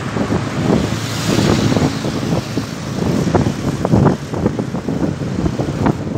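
Wind buffeting the microphone on a moving vehicle, in gusts, over a steady rush of road and engine noise.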